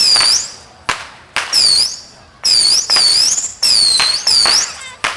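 Fireworks going off in quick succession: about eight sharp cracks, most followed by a high, shrill whistle that dips in pitch and climbs again.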